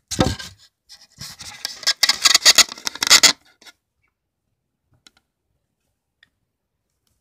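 Scratching and rubbing noise right at the microphone, camera handling as it is moved and set in place against a wire pet cage; it stops after about three and a half seconds, leaving only a couple of faint ticks.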